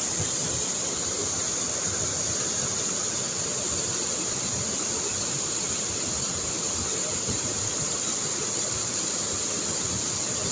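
Steady rushing water of a stream or waterfall, with a constant high-pitched hiss or drone over it.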